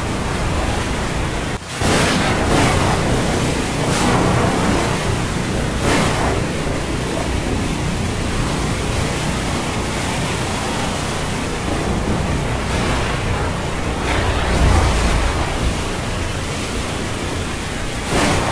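Stormy sea ambience: a steady rush of rain and breaking waves, swelling in surges every couple of seconds. There is a brief drop just under two seconds in, and a deeper rumble near the end.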